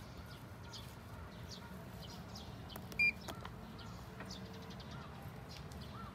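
A short, high electronic beep sounds once about three seconds in, one of a series repeating about every three and a half seconds, over a steady low hum with faint high chirps.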